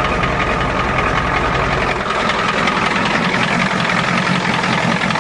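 Ford diesel truck engine idling cold with a steady, fast diesel clatter, running on its own just after a successful cold start on repaired glow plugs.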